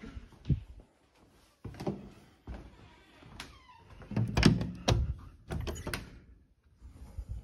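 A series of knocks and thuds, the loudest about four and a half seconds in, with a brief falling squeak shortly before.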